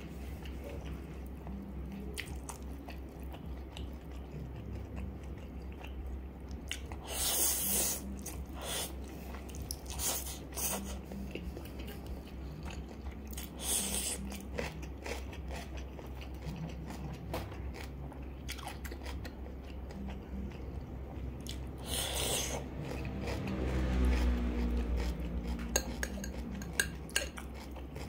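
Eating sounds: chewing, with several louder crisp crunches from biting raw cucumber slices, and a metal fork clinking and scraping on a ceramic plate.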